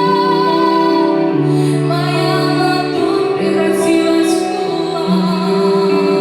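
A woman singing with musical accompaniment, holding long notes.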